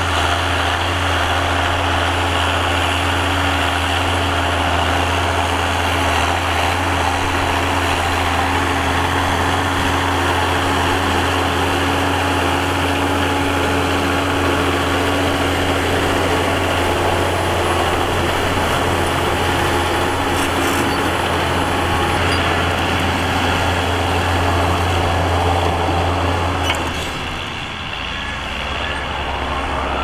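John Deere tractor's diesel engine running steadily under load as it pulls a disc harrow through dry soil, a constant low drone. About 27 seconds in the sound drops briefly, and a rising whine follows near the end.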